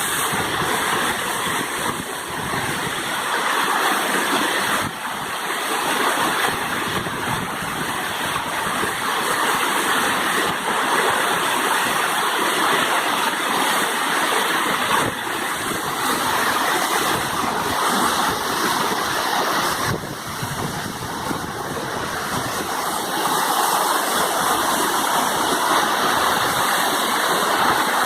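Waterfall: the steady rush of falling water, a constant dense noise that swells and eases a little.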